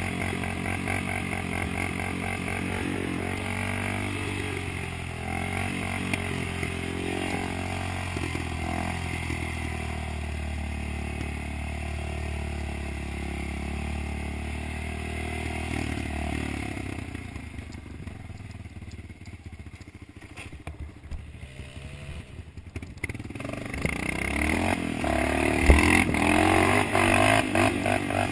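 Dirt bike engine running close by while riding a rough trail. It drops to a quieter, lower run a bit past the middle, then revs up louder near the end, with one sharp knock shortly before the end.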